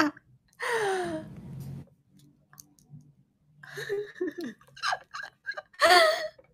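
A woman laughing: a drawn-out, falling, breathy laugh about a second in, short vocal bursts in the middle, and a louder laugh near the end.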